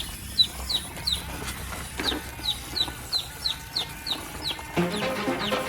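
A bird chirping in a steady run of short, high, falling notes, about two or three a second. Music with a beat comes in near the end.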